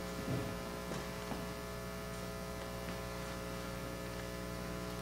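Steady electrical mains hum in a pause between speakers, with a few faint knocks in the first second and a half.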